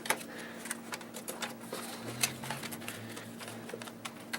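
Scattered light clicks and taps of computer cables and plastic parts being handled inside an open desktop PC case, over a faint steady hum.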